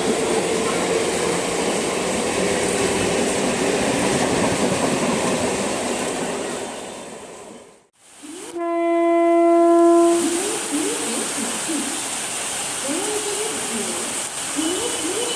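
Mumbai suburban EMU local train running through the station, a dense rushing rail noise that fades away about eight seconds in. Then comes a single steady horn blast of about a second and a half, the loudest sound, followed by a return of running noise with wavering tones.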